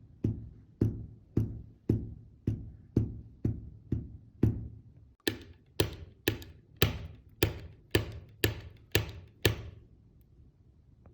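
A walking cane's tip striking the floor at a steady walking pace, about two strikes a second. About five seconds in, the strikes turn sharper and brighter, and they stop near the end.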